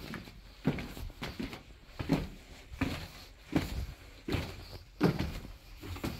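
Footsteps going down steps, a sharp step thump about every 0.7 seconds, in a small stone passage.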